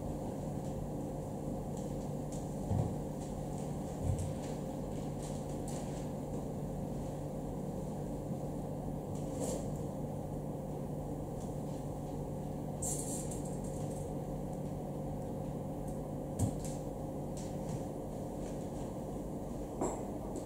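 Steady low room hum with a few scattered soft knocks and faint clicks.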